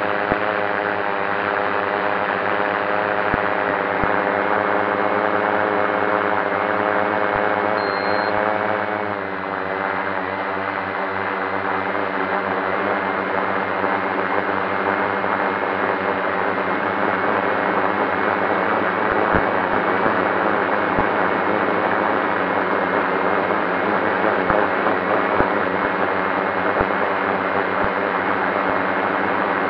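FPV quadcopter's motors and propellers buzzing steadily, dropping in pitch about nine seconds in and then holding steady.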